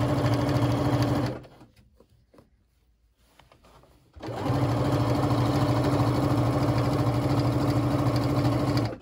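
Sewing machine stitching a seam, running at a steady speed. It stops about a second in, leaving a pause with a few light clicks, then starts again about four seconds in and runs steadily.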